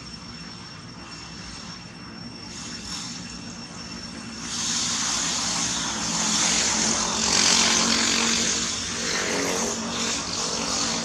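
Engine noise of a passing vehicle or aircraft, swelling sharply about four and a half seconds in and staying loud.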